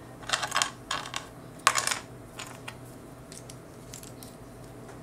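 Small hard plastic action-figure parts clicking and rattling as the helmet pieces are handled and pegged together. Several quick clusters of clicks come in the first two seconds, the loudest a little under two seconds in, followed by lighter scattered ticks.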